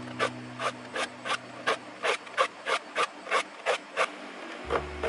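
Metal saw file rasping across the steel teeth of a handsaw in short, quick strokes, about three a second, as the teeth are sharpened; the strokes stop near the end.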